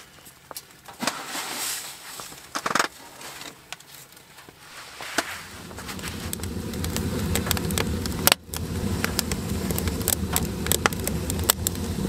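A metal pot set onto the steel top of a wood stove, with a few clinks and glove rustle. About halfway in, the wood fire inside the stove takes over: a steady low rush of flame with frequent crackles and pops from the burning wood.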